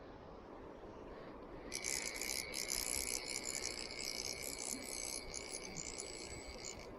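Steady rushing of river water, with a bright, shimmering chime-like jingle laid over it from about two seconds in that stops abruptly near the end.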